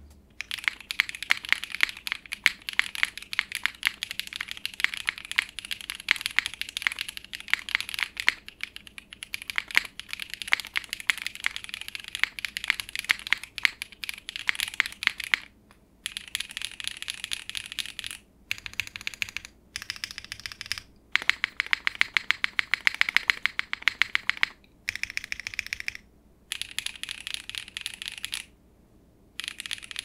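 Mechanical keyboard with Kailh BCP pre-lubed linear switches, typed on in fast, steady runs of keystrokes with a few brief pauses in the second half. The keystrokes sound full and a bit muted, slightly deep in pitch, with the faint but audible scratch of the switches' textured nylon housings.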